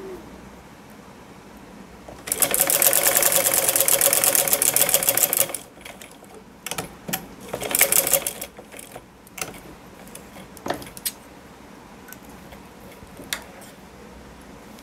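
Sewing machine stitching a seam through salwar cloth in two runs: a steady run of about three seconds starting about two seconds in, and a shorter one near eight seconds. Light clicks and cloth handling follow.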